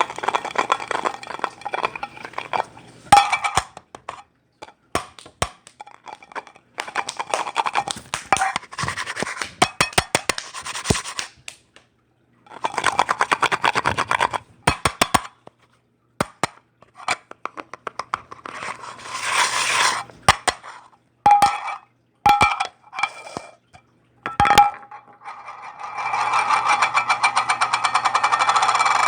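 A metal can being scraped, rubbed and tapped to make odd sounds, its body ringing at a few fixed pitches. Stretches of rapid scraping rattle lasting several seconds alternate with gaps and single sharp taps.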